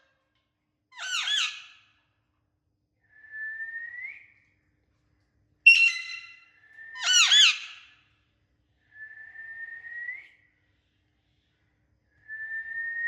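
Pet parakeet calling: two loud, harsh squawks and several drawn-out whistles, each whistle rising in pitch at the end.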